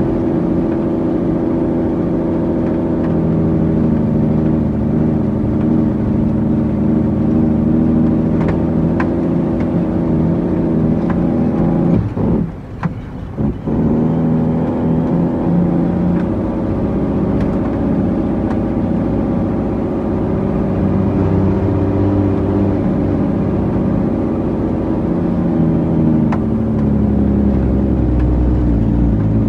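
Heavy diesel engine of an International 9300 truck running, a steady drone whose pitch shifts several times. The sound dips briefly about twelve seconds in.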